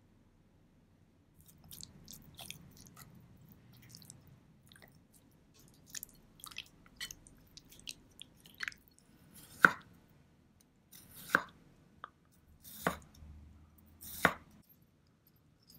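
Wet squelching and scattered light clicks as marinated pork is stirred in a glass bowl, then a kitchen knife slicing a cucumber on a wooden cutting board: four sharp knocks of the blade on the board, about a second and a half apart, the loudest sounds.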